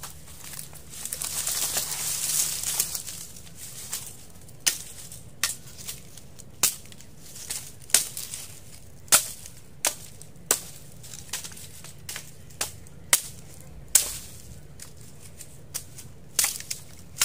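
Dry leaves and sticks rustling for the first few seconds. Then a machete chopping at a wooden stick: a dozen or so sharp knocks, roughly one every half second to a second.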